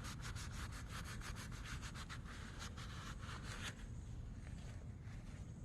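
Hand scrubbing on the lathe's metal surface: quick, repeated back-and-forth rubbing strokes that ease off after about four seconds, cleaning off decades-old grime.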